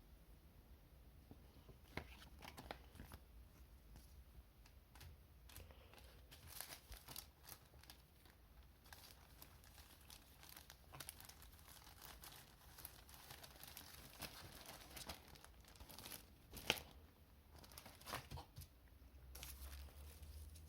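Packaging being handled by hand, crinkling and tearing in irregular bursts with small clicks, from about two seconds in.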